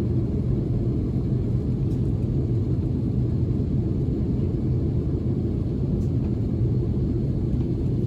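Steady low rumble of an aeroplane in flight, heard from inside the cabin: engine and airflow noise with no changes.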